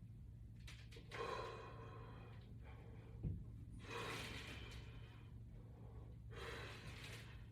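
A person breathing hard from exertion while working out with resistance bands: three long, audible breaths about two and a half seconds apart. There is a short click about three seconds in.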